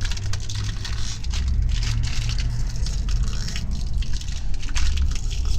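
Kancho biscuits being poured out of their torn packet into a tub, a dense patter of many small clicks and rattles with packet crinkling and handling rumble.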